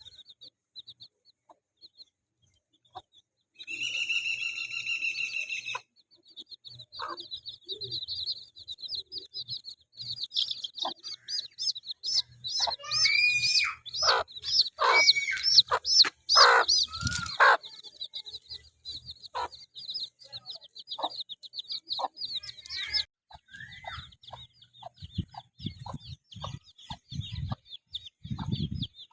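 Baby chicks peeping in a busy, rapid chorus, with a hen clucking among them. A long, held high call sounds about four seconds in, and a run of low thuds comes near the end.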